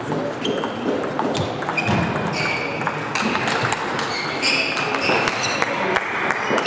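Table tennis rally: the ball clicking off the bats and the table in quick succession, with more ball clicks from neighbouring tables in a sports hall.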